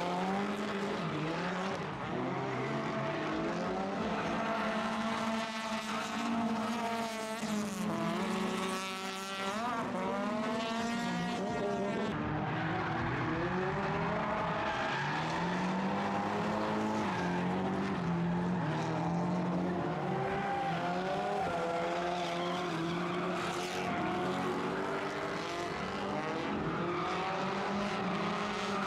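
Drift cars' engines revving up and down hard, over the hiss of tyres squealing as they slide, with quick rises and falls in engine pitch midway through.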